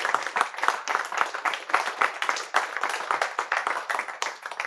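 An audience of a few dozen people applauding, with many hands clapping at once, thinning out to a few last claps near the end.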